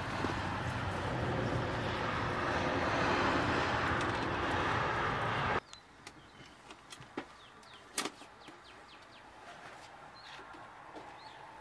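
Loud steady outdoor noise on the microphone that cuts off abruptly about five and a half seconds in. Then faint rustles and small clicks as peel-and-stick tile sheets and their plastic backing are handled, with one sharp click about eight seconds in.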